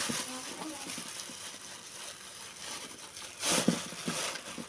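A plastic bag full of salted ice cubes rustling and crinkling as hands twist and handle it. There is a louder crinkle about three and a half seconds in.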